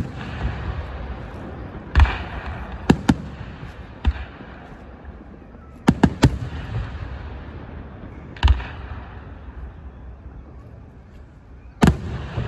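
Fireworks going off: a string of sharp bangs a second or more apart, some coming in quick twos and threes, each trailing off in a rolling echo.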